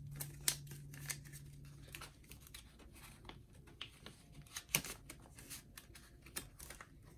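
Paper dollar bills rustling and crinkling as cash is handled and slid into a budget wallet's zipper pocket, with light taps and clicks of the wallet, and one sharper click about five seconds in.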